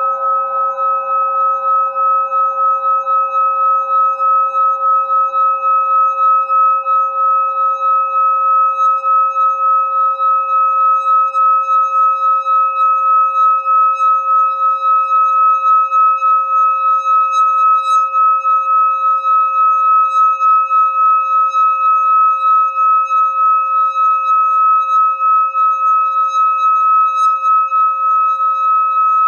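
Metal singing bowl made to sing by a stick rubbed around its rim: a steady, sustained ringing tone with a few clear overtones, its loudness wavering in a regular pulse.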